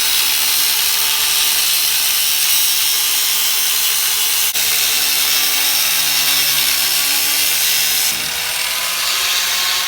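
Angle grinder running and cutting through a seized, rusted bolt on the truck's rear suspension, a steady metal-cutting screech. The motor's pitch wavers under load and rises slightly near the end as the cut lets up.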